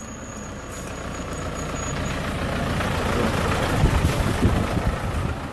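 A car approaching and passing close by. Its noise builds steadily, peaks about four seconds in, then starts to fade.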